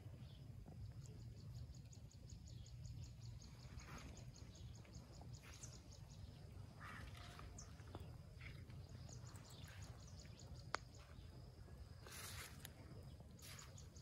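Near silence: faint outdoor ambience with a steady low rumble, faint insect chirping in quick, even series, and a few brief rustles, the loudest of them near the end.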